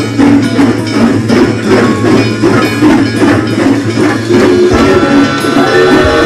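Background music with a steady beat of about three strikes a second; about five seconds in the beat stops and held notes carry on.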